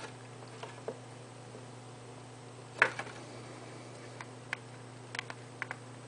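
Scattered small plastic clicks from handling a mini Bluetooth keyboard and pressing its keys and buttons, with one louder click about halfway through and a cluster of quick clicks near the end, over a faint steady electrical hum.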